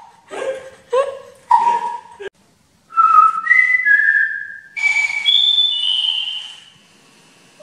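A few short bark-like yelps, then, after a break, a three-note whistle followed by the talking toy parrot playing the same three notes back nearly an octave higher, with a hiss from its small speaker.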